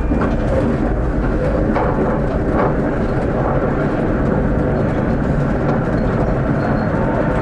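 A Prague tram running along its rails, a steady rumble of wheels and running gear, with a few short clicks from the track.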